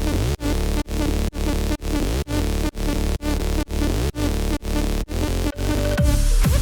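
Electronic dance music at 128 BPM: a sustained synth chord pumping, dipping in loudness on every beat, with synth pitch glides sweeping up and down. About six seconds in it turns louder and fuller, with falling bass swoops.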